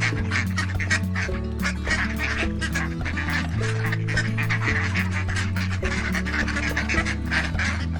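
Waterfowl calling, a busy chorus of quacks and honks, over background music with held bass notes that change about once a second.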